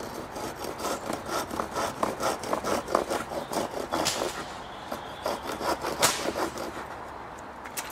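The saw teeth on the back of a Gerber machete cutting into a wooden board in quick, rough back-and-forth strokes. There is a sharp knock about four seconds in and a louder one about six seconds in, then the strokes trail off.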